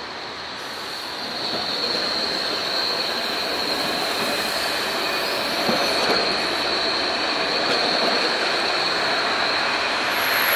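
Low-floor articulated tram passing on a curve, its wheels squealing against the rails in a steady high-pitched whine over the rumble of wheels on track. The rumble grows louder about a second and a half in as the tram comes alongside.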